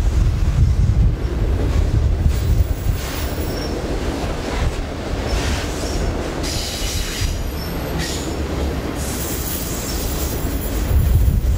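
Freight cars of a long mixed freight train rolling by: a steady heavy rumble of wheels on rail, with short high wheel squeals now and then.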